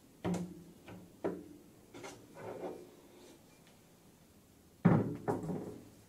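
A few knocks and clunks of things being handled on a table, then the loudest, a heavy double thud about five seconds in as a tall square bar of aluminium stock is stood upright on the tabletop.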